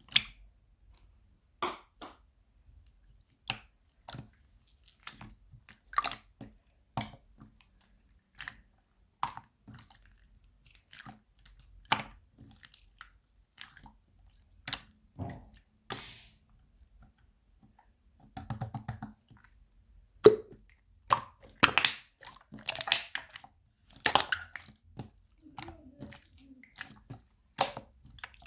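Close-up chewing of jelly candy: wet, squishy mouth sounds and sharp clicks in scattered bites, coming thicker and busier in the second half.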